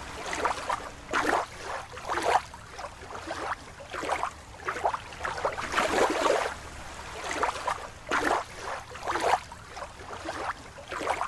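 Water sloshing and splashing in irregular swishes, about one a second.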